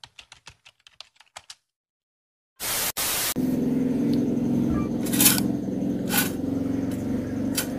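Keyboard-typing clicks run quickly for about a second and a half, then stop. After a short pause comes a brief loud hiss, then a steady low hum broken by a few sharp mouse-button clicks.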